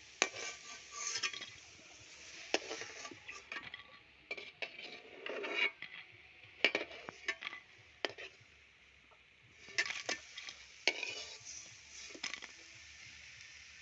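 A metal spatula clinking and scraping against a kadai of hot oil as fried fish-roe fritters are lifted out, in a string of sharp, irregular knocks with a light hiss between them.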